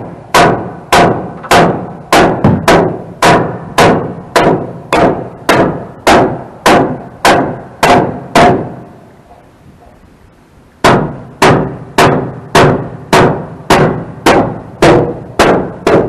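Hammer driving nails into a wooden board, struck in a steady run of about two blows a second; the hammering pauses for about two seconds just past the middle, then starts again at the same pace.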